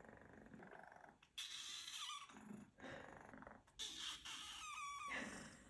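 Young orange-and-white kitten meowing insistently, three calls in a row: a short one about a second and a half in, then two longer ones.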